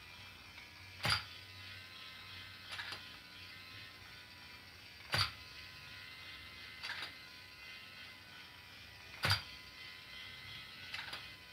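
Pororo automatic domino toy running: a faint small-motor hum with a sharp mechanical click about every two seconds, every other click louder.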